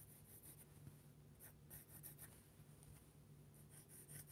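Graphite pencil scratching faintly on drawing paper in a series of short strokes as straight construction lines are drawn, over a low steady hum.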